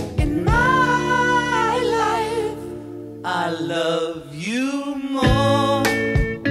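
Background song: a sung vocal line of long held, wavering notes with an upward glide partway through, over instrumental backing; plucked guitar notes come back near the end.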